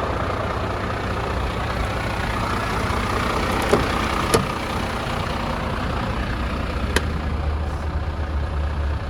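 Heavy truck's 300 bhp Euro 6 Mercedes diesel engine idling steadily, with three short sharp clicks about a third and three quarters of the way through.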